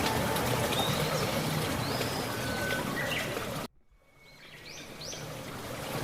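Steady rush of flowing water with birds chirping in short whistled notes. About two-thirds of the way through the sound cuts out abruptly, then bird calls and the water-like hiss fade back in.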